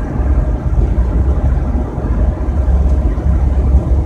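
Steady low rumble of road and engine noise from a van cruising at highway speed on the interstate.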